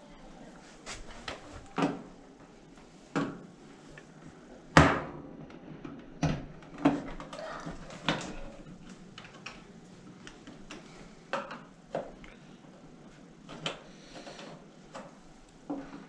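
Screwdriver prying and tapping at a new GE dryer's control panel, working it loose: irregular clicks and knocks, the loudest about five seconds in.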